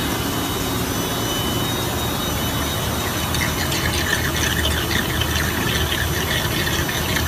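Suction unit of a BEST-1 cutting-coolant filtration machine running steadily with a low hum, drawing oily coolant emulsion and sludge up a hose. About three seconds in, an irregular crackling, sputtering hiss joins the steady noise.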